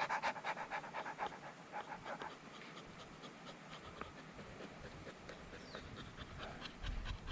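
A dog panting rapidly, about four or five breaths a second, plainest in the first couple of seconds and softer after.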